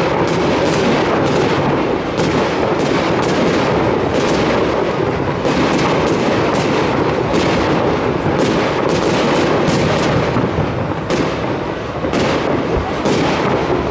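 Aerial fireworks display: shells bursting in a rapid, continuous barrage of bangs, about two or three a second.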